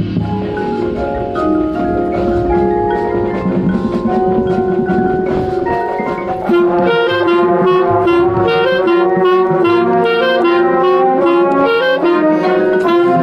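Marching band playing, wind instruments over mallet percussion, heard from within the band. About six and a half seconds in the band comes in louder and fuller, with a steady rhythmic pulse.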